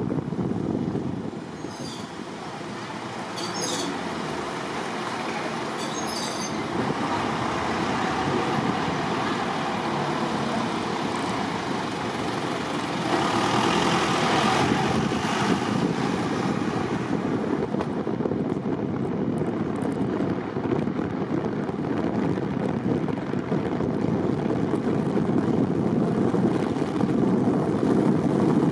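A car driving on town streets: steady road and engine noise, which swells louder for a few seconds about halfway through.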